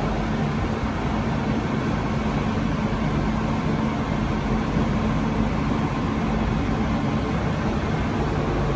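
Bombardier Innovia APM 100 people mover standing at the platform with its doors open: a steady low hum and rushing noise from the idling car's onboard equipment.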